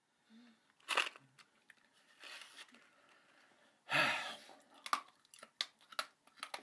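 Mouth sounds of a man biting and chewing something crunchy held in his mouth, close to the phone's microphone. A few short rustly bursts come first, the loudest about four seconds in, then a quick run of crunching chews.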